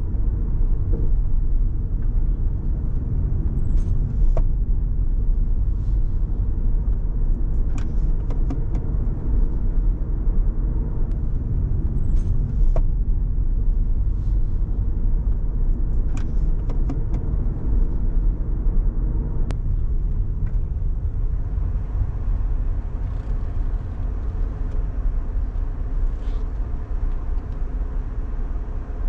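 Car driving on city streets: a steady low rumble of road and engine noise, with scattered light clicks and rattles.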